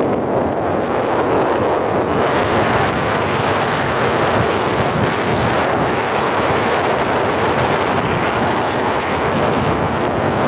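Wind blowing over the microphone: a loud, steady rushing noise with no let-up.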